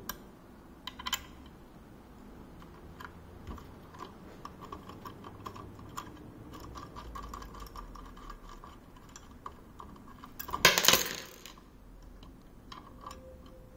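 Small metal clicks and ticks as the tilt-joint screw of a monitor-mount arm is turned counterclockwise and worked loose by hand, with a louder clatter of metal parts about ten seconds in.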